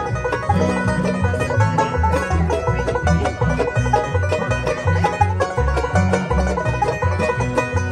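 Acoustic bluegrass band playing an instrumental: banjo picking over an upright bass line with steady notes about two a second, with other string instruments joining in.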